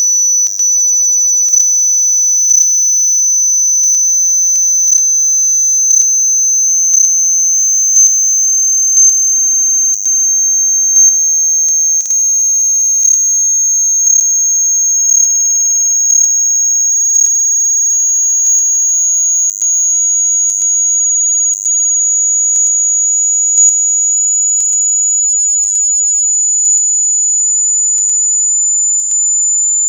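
Pure sine-wave hearing-test tone, high-pitched and steady, slowly stepping up in pitch over the whole stretch, with a faint tick about once a second as each step changes.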